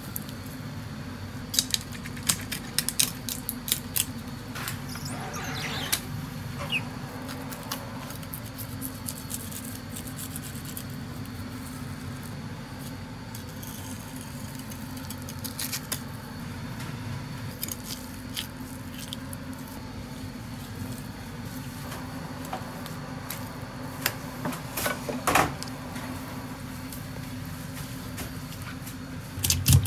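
A filleting knife clicking and scraping against fish bones and a plastic cutting board as a large fish is cut, in scattered sharp ticks over a steady low hum.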